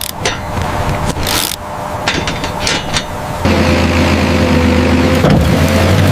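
Heavy construction machinery at work: clanking and scraping strokes, then at about three and a half seconds a machine engine starts running steadily with a low hum.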